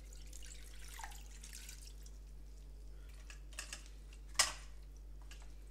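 Cold water poured from a plastic jug over cooked udon noodles in a pan: a soft trickle for the first couple of seconds, thinning into scattered drips and small wet sounds as the noodles are handled. One sharp knock about four seconds in.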